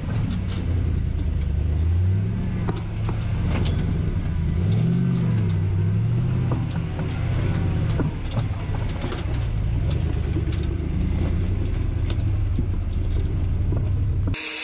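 Rock crawler buggy's engine running at low revs while crawling over rock, with a short rev up and back down about five seconds in. Scattered knocks and clicks sound over the engine.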